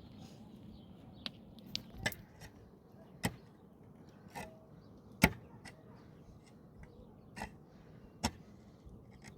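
A series of sharp, irregularly spaced knocks or taps, about eight of them, the loudest about five seconds in, over faint background noise.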